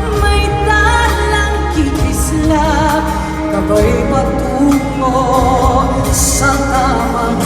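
Female singing with vibrato over pop band accompaniment with a heavy bass.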